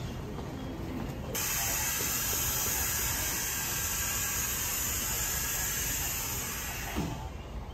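Compressed air hissing loudly from the coupled ends of the Sunrise Express sleeper train, starting suddenly about a second and a half in, holding steady, and cutting off near the end, over the low rumble of the standing train. It is typical of air being vented as the two train sets are uncoupled.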